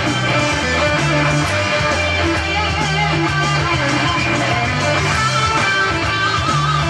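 Electric guitar playing melodic lines and strums over a backing track, with a bass line changing notes every second or so underneath.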